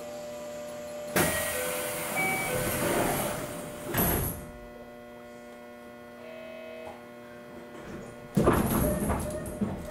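Air-operated sliding doors of a JNR 213 series electric train closing: a sudden hiss of air starts about a second in and runs for about two seconds, and the doors thud shut about four seconds in. Near the end another burst of air hiss.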